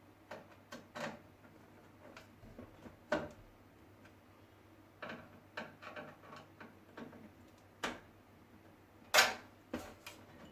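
A screwdriver tightening the screws that hold a motherboard to the metal case: scattered small clicks and taps of the driver tip and screws, the loudest about three seconds in and near the end.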